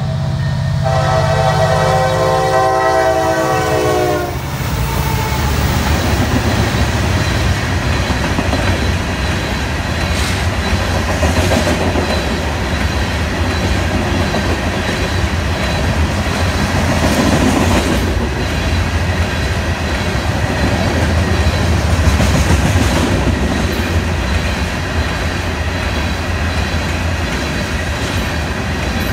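Diesel locomotive horn of NS 911, an EMD SD60E, sounding a chord that cuts off about four seconds in. The train then passes close by: engine rumble gives way to the steady clatter of wheels on rail as a long string of open-top hopper cars rolls past.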